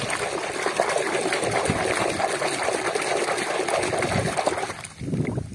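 Water churning and sloshing as a hand scrubs a muddy toy motorbike in a tub of foamy water. The churning stops suddenly about five seconds in, followed by a few smaller splashes.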